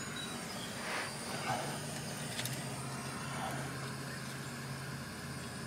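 Faint handling sounds and one sharp small click of hands working engine wiring, over a steady low hum and background noise.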